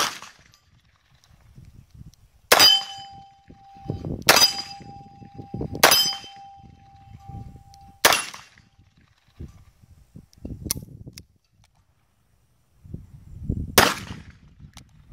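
Smith & Wesson Governor revolver firing .45 Colt hollow-point rounds: about six single shots one to two seconds apart, with a longer pause before the last. After three of the shots a hanging steel target is hit and rings with a clear metallic tone.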